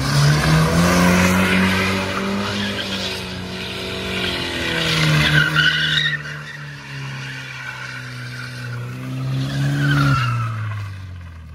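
Hatchback car drifting in circles: engine held at high revs while the rear tyres squeal and skid. The revs climb at the start, hold roughly steady, and drop away about ten seconds in.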